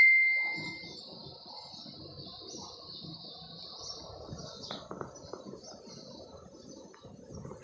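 A ringing ding fades out during the first second. Then a steady high-pitched chirring continues over faint background noise, with a few light ticks about five seconds in.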